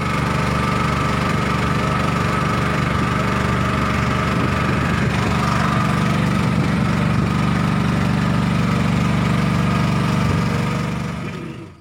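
Small boat engine running steadily at a constant speed, fading out near the end.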